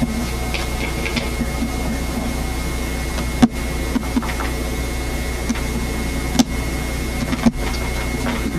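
Steady low electrical hum and hiss with a thin high whine, the noise of an old camcorder recording in a quiet room. A few soft clicks and taps come from small objects being handled.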